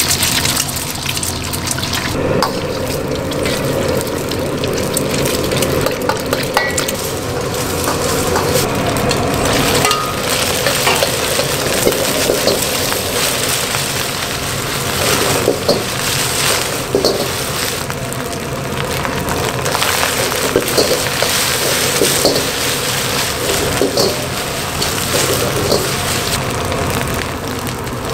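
Eggs poured into hot oil in a wok sizzle loudly, then egg and rice are stir-fried: a steady sizzle with the metal ladle repeatedly scraping and clinking against the wok.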